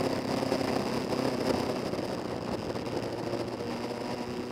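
Motorcycle engine running at cruising speed with steady wind and road rush. The engine note shifts in pitch near the end.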